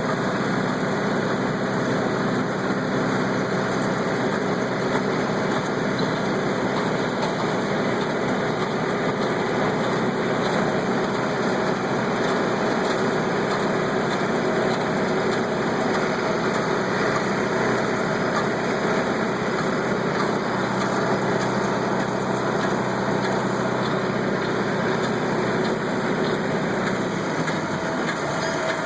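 Kubota tractor's diesel engine running steadily under load, pulling a hay baler, with the baler's clatter mixed in. The engine note shifts slightly near the end.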